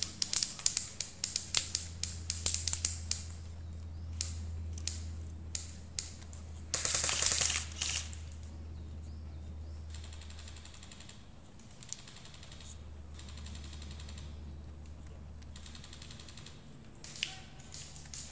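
Airsoft rifles firing: irregular single snapping shots for the first few seconds, a loud rapid full-auto burst about seven seconds in, and a few more shots near the end.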